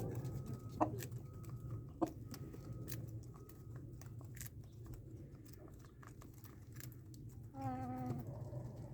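Chickens feeding, with scattered light taps and clicks, and one short chicken call a little before the end.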